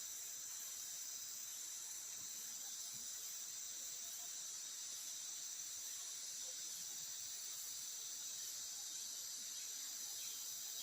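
Steady, high-pitched chorus of forest insects, several shrill tones held at once without a break.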